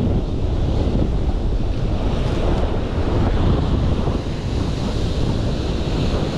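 Wind buffeting the microphone over the steady rush of surf breaking on the rocks.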